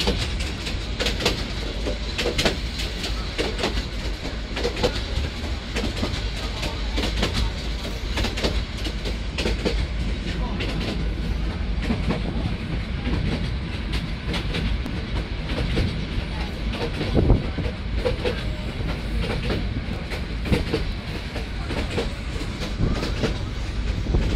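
Passenger train running along the track, heard from inside a carriage at an open window: a steady low rumble with frequent irregular rattles and clacks of the carriage and wheels.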